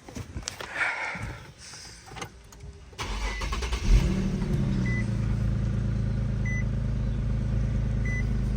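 Nissan VQ37VHR V6 of an Infiniti G37 being cranked about three seconds in, catching with a brief rev flare and settling into a steady idle that no longer misfires after a faulty cylinder-4 coil pack was replaced. A short beep repeats about every second and a half over the idle, and light clicks come before the start.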